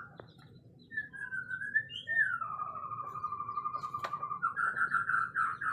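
White-rumped shama singing: clear whistled phrases that glide up and down, then a long, slightly wavering note, and a quick warbling trill near the end.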